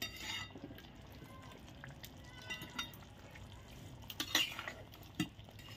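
Metal spatula stirring thick curry in a metal kadai: light scrapes and knocks of metal on metal, the loudest a little after four seconds in.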